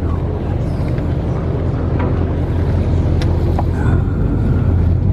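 A boat's engine running steadily, a low, even rumble heard from on board.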